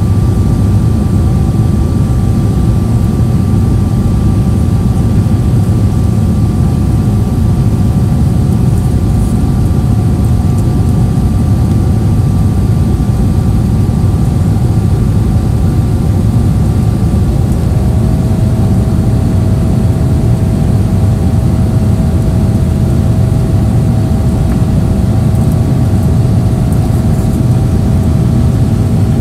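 Boeing 777-300ER cabin noise in the climb: the loud, steady rumble of airflow and its GE90-115B engines, with a faint steady engine whine. About two-thirds of the way through, one whine fades and another steps down a little in pitch.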